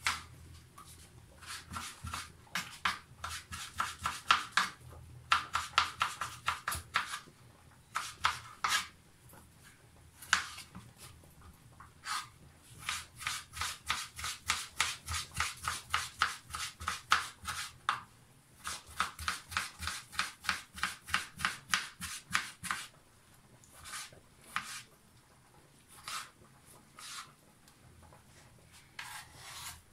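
A chef's knife slicing tomatoes on a plastic cutting board: quick runs of knife strokes hitting the board, several a second, with short pauses between runs and fewer, scattered cuts near the end.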